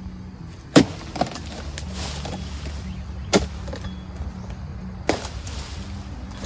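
Long-poled oil palm harvesting chisel (dodos) chopping at the base of a fruit bunch: a handful of sharp chops one to two seconds apart, over a steady low hum.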